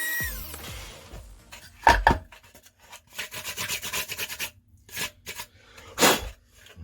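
Electronic background music fading out in the first second, then hand scraping and rubbing strokes on a plastic model stand: two loud strokes, a quick run of short ones, then a few more, with a loud stroke near the end.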